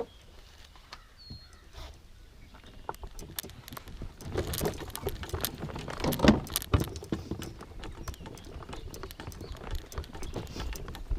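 Irregular clicks, knocks and rattles, sparse at first, then busier and louder for a few seconds in the middle with a couple of heavier thumps, then easing off.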